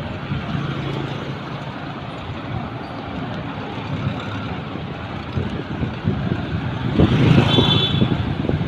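Engine rumble and road noise of a moving vehicle in street traffic, growing louder about seven seconds in, when a brief high-pitched tone sounds.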